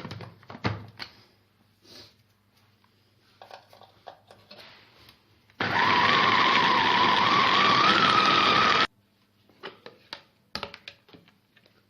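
Electric kitchen grinder running for about three seconds, chopping steamed figs stuffed with garlic. Its motor whine rises slightly in pitch and then cuts off suddenly. There are light knocks before and after it.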